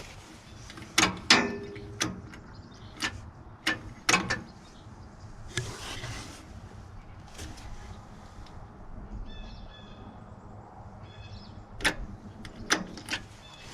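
A series of sharp, separate clicks and knocks, about a dozen, with two short bursts of high chirping beeps about nine and eleven seconds in.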